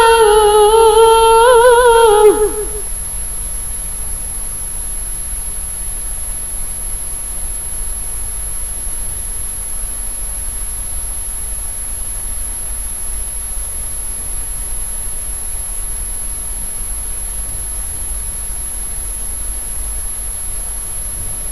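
A woman's melodic Quran recitation holds a long wavering note that ends about two and a half seconds in. After it comes a long pause filled only by a steady low hum and a thin high tone.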